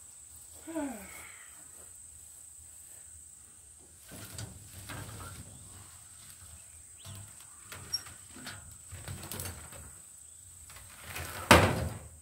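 Rustling and handling of a tow-behind lawn dump cart with a plastic tub and metal frame as it is pulled out of tall weeds, with a single loud clank near the end as it is tipped onto its wheels. Insects drone steadily behind.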